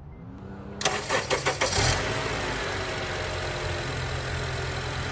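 2007 Acura TSX's 2.4-litre inline-four cranked over by the starter, catching a little under a second in. It runs unevenly for about a second, then settles into a steady idle on its fresh oil just after an oil change.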